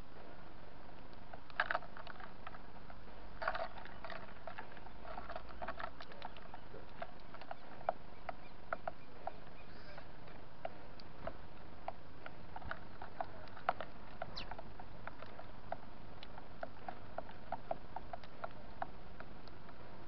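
Small birds pecking cornmeal off a wooden feeder tray close to the microphone: an irregular scatter of sharp little taps, with a couple of louder short bursts in the first few seconds.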